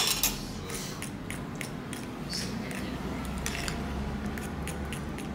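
A metal spoon clinks down onto a ceramic plate at the start, then a spoon stirs wet batter in a ceramic bowl, scraping and ticking lightly against its sides.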